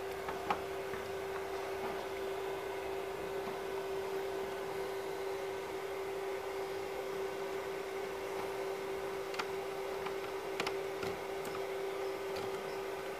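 A steady electrical hum on one fixed tone, with a few faint clicks and taps as an HDMI plug is handled and pushed into a laptop's side port.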